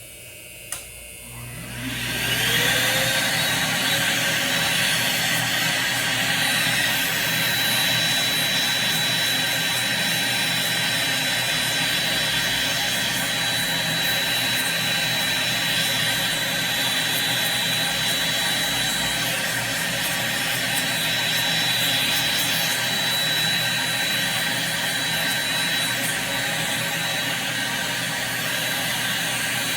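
Dust-extraction fan of a podiatry micromotor with a built-in aspirator starting up with a rising whine, then running steadily with a high whine and a rush of suction air.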